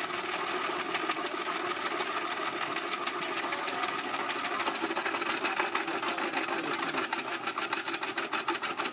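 Soft-serve ice cream machine running as soft-serve is dispensed: a steady mechanical whir with a rapid, even rattle that becomes more distinct in the second half.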